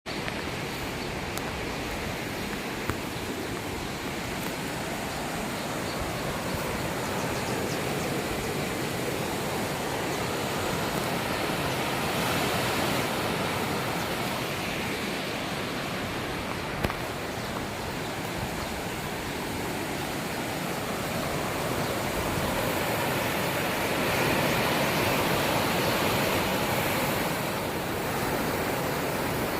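Swollen river in flood, a steady rushing roar of fast turbulent water that swells a little now and then, with a couple of faint clicks.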